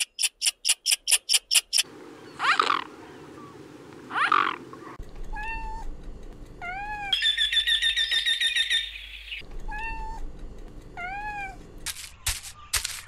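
Cats meowing: two short meows, then a series of repeated arched mews, broken by a fast high trill about halfway. Before them comes a rapid run of short, sharp high chirps, about five a second, and a few sharp clicks come near the end.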